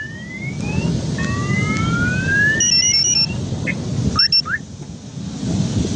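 Several car alarms sounding at once: slow rising sweeps that repeat, a stepped two-tone pattern about halfway through and short chirps a little later, over a steady low rumble.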